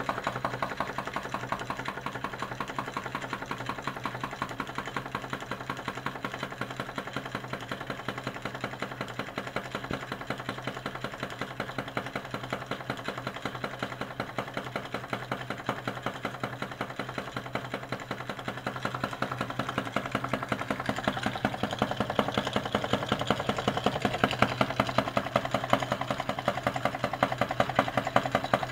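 Homemade tin-can Stirling engine running over candle flames, clattering in a rapid, even rhythm as it spins a flywheel belted to a small generator. The clatter grows louder about two-thirds of the way through.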